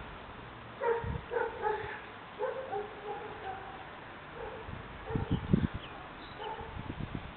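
A small terrier yipping and whining in short high calls, a quick run of them about a second in and more scattered through the rest. Low thumps on the microphone are loudest a little past the middle.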